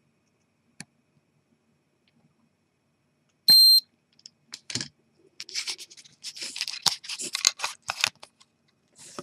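The small Dimika camera gives one short, high electronic beep about three and a half seconds in, typical of it being switched off. Then comes several seconds of scratching, rubbing and clicking as the camera is handled.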